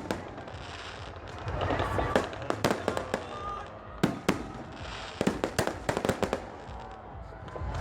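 Fireworks and firecrackers going off: irregular clusters of sharp bangs and cracks, with people's voices in the background.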